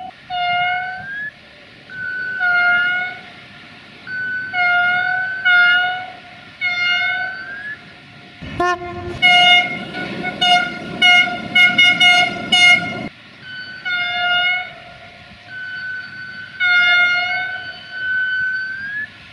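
Train horns sounding in a run of blasts, each about a second long, some rising in pitch as they start. Between about 9 and 13 seconds in comes a quick series of short toots over a loud rushing noise.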